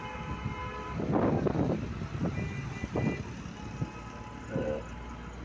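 Road traffic heard from inside a moving city bus, over the low rumble of the bus. A vehicle horn honks for about a second at the start, and a higher horn honks about two and a half seconds in. Loud noisy rattles and thumps come between them.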